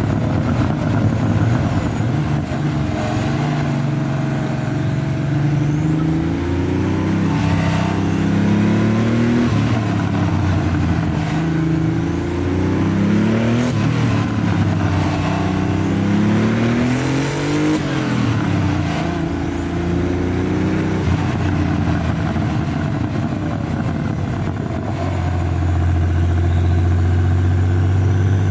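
Porsche 930 Turbo's air-cooled, turbocharged 3.3-litre flat-six accelerating hard through the gears. The engine note climbs in pitch and then drops back at each shift, several times over, with thin high whistles rising over it from the turbo spooling. In the last few seconds the engine settles to a steady, even note.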